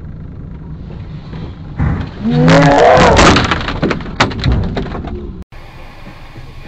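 Car collision heard from inside the cabin: over steady road rumble a sudden loud crash about two seconds in, with a person's loud wordless yell and a run of knocks and thuds as snow and debris hit the car, dying away after about two more seconds. Near the end the sound cuts to a quieter steady engine and road noise.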